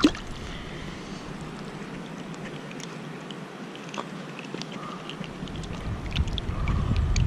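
Shallow creek water running over stones, with small handling clicks and one sharp click at the start. Wind buffets the microphone, building over the last couple of seconds.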